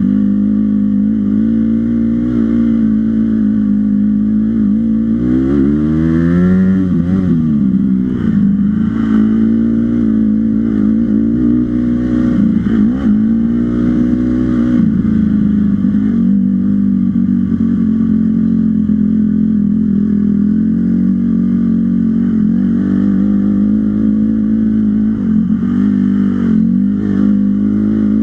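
Dirt bike engine being ridden in an off-road race, running at a fairly steady pitch. The revs climb sharply about six seconds in, and rise and fall again between about twelve and fifteen seconds.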